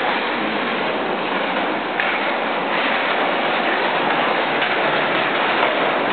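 Skateboard wheels rolling on a smooth concrete garage floor: a steady, loud rumble with one small click about two seconds in.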